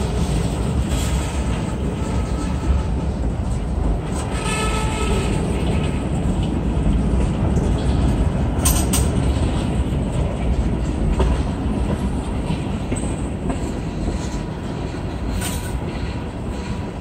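Freight cars rolling past at close range: a steady rumble of steel wheels on the rails, with a faint wheel squeal about four to five seconds in.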